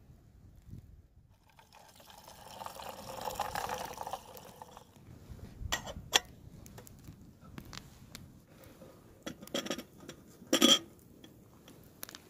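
Water pouring into a stainless steel kettle for about three seconds, followed by metallic clicks and clanks as its lid is closed and the kettle is handled, the loudest clank about ten and a half seconds in.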